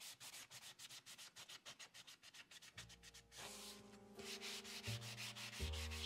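Sanding block scrubbing the black paint coat off a stainless steel radiator side plate, in rapid, even back-and-forth strokes. Faint steady tones that shift in pitch come in about halfway through.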